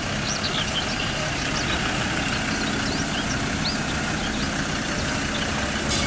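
Engine of a trackless road train (park tourist train) running steadily as it drives along, with birds chirping.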